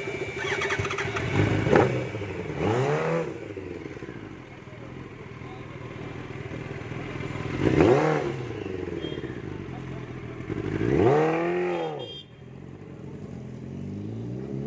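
Yamaha R1 sport bike's inline-four engine revved several times while standing: each throttle blip rises in pitch and falls back to a steady idle, about four in all.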